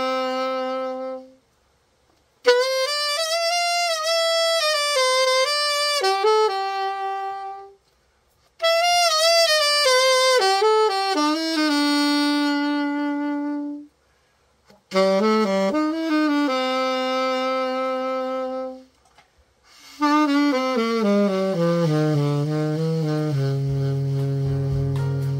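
Yamaha YAS-82Z alto saxophone being play-tested after a full overhaul: five short melodic phrases with brief pauses between them, some notes with vibrato. The last phrase runs down to the bottom of the horn's range and holds a low note near the end.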